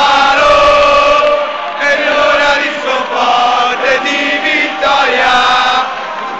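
Stadium crowd of football supporters singing their club anthem together, the voices holding long notes in phrase after phrase.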